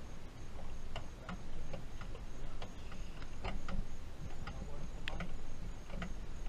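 Sharp metal clicks and clinks at irregular intervals, about two a second, from hand tools working on bolts and parts in a car's engine bay.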